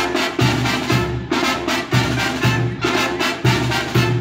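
Brass band music with a steady, pulsing bass beat.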